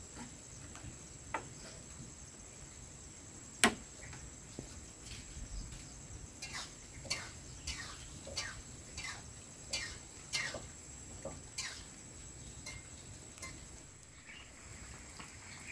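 A steady high-pitched insect drone, with one sharp click a few seconds in and then a run of short falling chirps, about one and a half a second, for several seconds.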